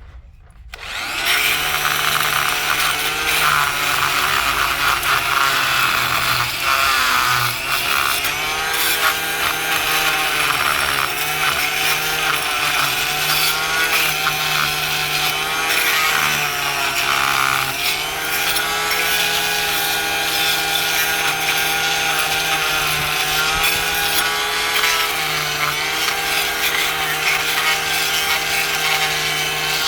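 Oscillating multi-tool running with its blade scraping hardened concrete off a putty knife. It starts about a second in and runs on steadily, its whine rising and dipping a little.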